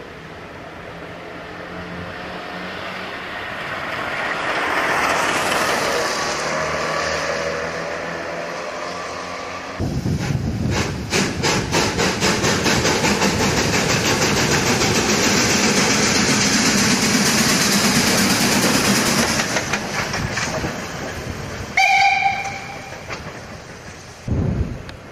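Narrow-gauge steam locomotive of the Molli railway: a hiss swells and fades, then from about ten seconds in the engine chuffs in a fast, even beat for some ten seconds. Near the end comes one short steam-whistle blast, followed by a brief low thump.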